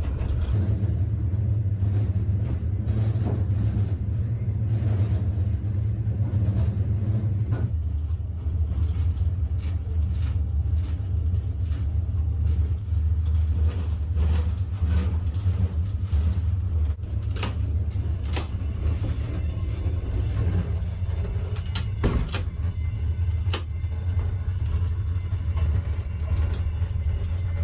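Steady low rumble of a moving passenger train heard from inside the carriage, with a few sharp knocks here and there.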